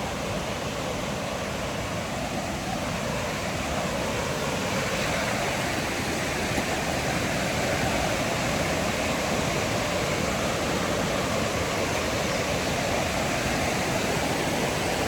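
Waterfall rushing: a steady wash of falling water, growing slightly louder about four seconds in.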